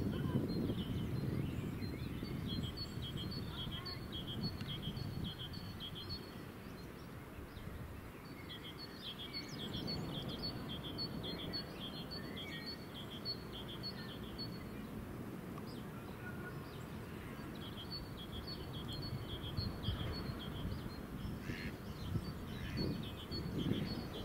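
Outdoor ambience: a small bird chirping in runs of short, quick high notes that come and go, over a steady low background rush.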